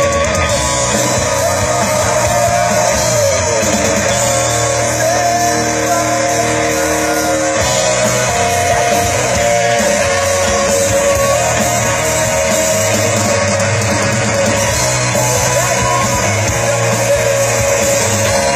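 Rock band playing loudly through a stage PA during a sound check: electric guitar and singing.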